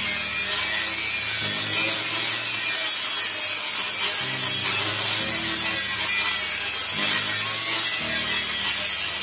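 Angle grinder with an abrasive disc cutting through steel plate: a steady, high grinding hiss.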